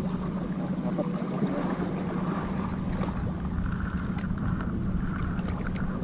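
Wind buffeting the microphone over choppy sea water, with waves lapping and a steady low hum underneath.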